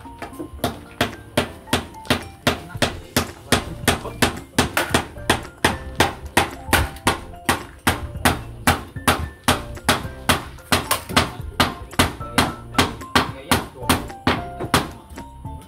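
Loud, evenly timed percussive strikes, about three a second, each followed by a brief ringing tone, with the pitch of the ringing shifting from time to time.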